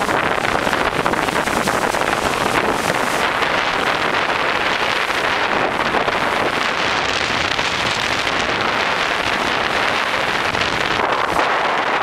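Wind buffeting the microphone over the steady rush of water from sailboat hulls and bow waves moving fast under sail.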